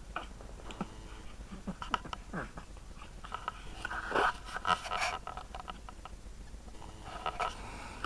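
Newborn baby's small grunts, snuffles and mouth noises, scattered soft sounds with a louder cluster about four to five seconds in.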